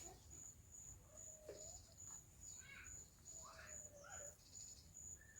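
Faint, evenly paced chirping of a cricket, about two short high chirps a second, against near silence, with a few soft brief sounds in between.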